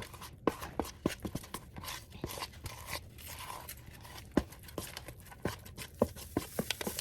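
A spoon stirring thick cookie dough in a mixing bowl: irregular scraping with sharp clicks and knocks as the spoon hits the bowl's sides.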